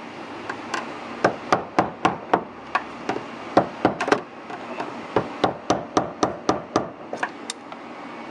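Hammer tapping the fuel pump's plastic retaining lock ring round to unlock it: a run of sharp knocks, about three a second, with a short break partway through and a few softer taps near the end.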